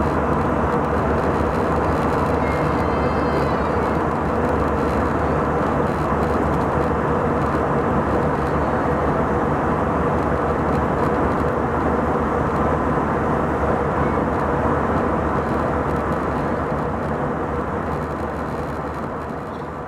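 Steady cabin drone of an Airbus A321's CFM56-5B jet engines in the climb, heard inside the cabin from a seat beside the engine, with several steady tones under the rushing noise. It fades out over the last few seconds.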